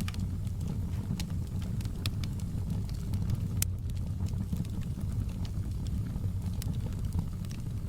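Open log fire burning in a fireplace: irregular sharp crackles and pops over a steady low rumble, with one louder pop a little past the middle.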